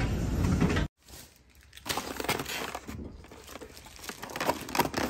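Busy restaurant serving-line hubbub that cuts off abruptly about a second in. Then a hand handles a foam takeout clamshell, making irregular crackling, crinkling and creaking.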